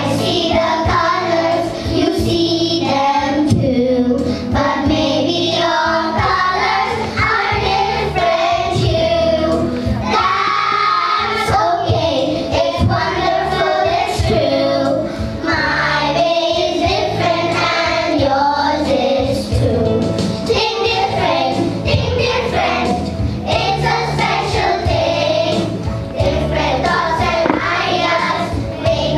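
A group of children singing a song together over musical accompaniment with a steady beat.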